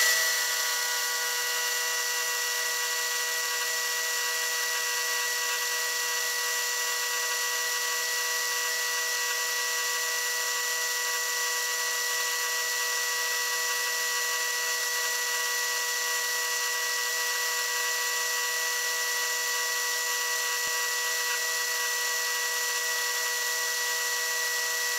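Milling machine spindle running fast with a small ground internal thread mill cutting a thread: a steady whine made of several held tones over a hiss, unchanging throughout.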